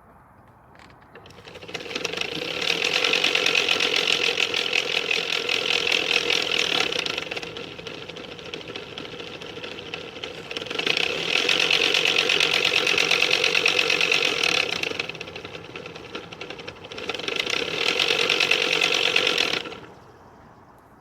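2011 Nissan Titan's A/C blower motor running in three stretches of several seconds each, with a fast mechanical rattle over a steady tone. The plastic blower wheel is cracked at its hub, so it shakes on the motor's metal shaft instead of turning with it.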